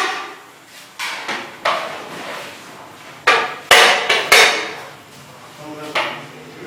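Cleaver chopping chicken on a board: about eight sharp, heavy knocks in uneven groups of two to four, each with a short ring.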